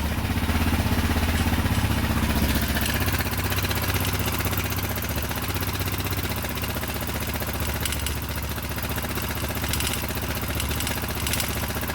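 Husqvarna 610 motorcycle's single-cylinder engine idling steadily, with the ticking noise it is being checked for. The engine sits slightly higher for the first few seconds, then settles.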